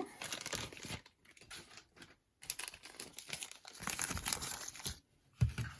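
Packaging crinkling and rustling as it is handled, in two stretches with a short lull about a second in.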